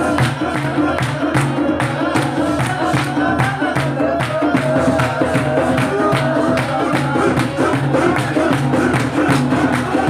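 Live folk dance music: a harmonium playing a melody over a quick, steady beat drummed on a metal jerrycan and a hand drum, with men clapping in time.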